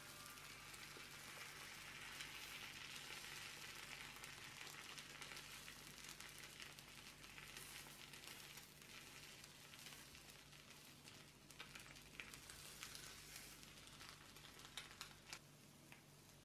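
Faint sizzling of an egg omelette frying in the pan, with scattered small crackles and a few sharper ticks near the end, over a low steady hum.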